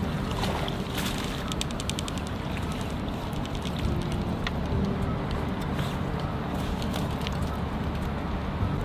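Steady low outdoor rumble, with a short run of fast, light clicks about a second and a half in.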